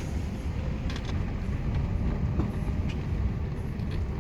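Floodwater pouring over a dam spillway, a steady, even rush.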